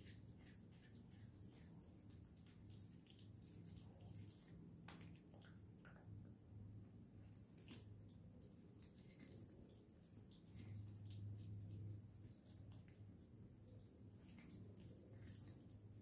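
Faint, steady high-pitched tone over a low hum, with a few faint clicks.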